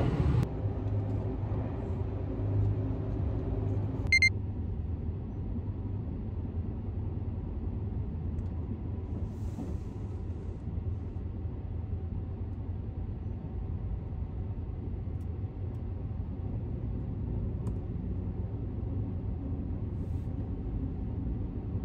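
Sunrise Izumo sleeper train running at night, heard from inside the carriage as a steady low rumble, with one brief sharp click about four seconds in.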